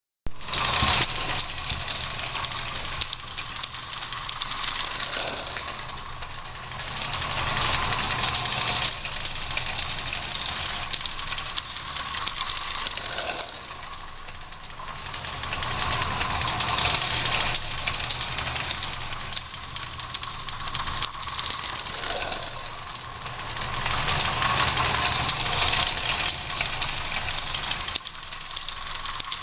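Butane-fired Mamod live steam locomotive running slowly on its track, a steady hiss of steam with chuffing and rattling ticks. It grows louder and fades again several times, as it comes round past and then away.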